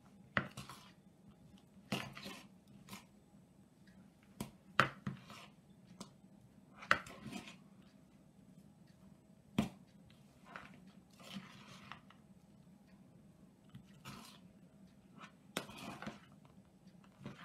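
A metal utensil stirring a thick cottage-cheese, onion and dill filling in a plastic bowl: irregular clicks and taps against the bowl, with a few longer scraping swishes.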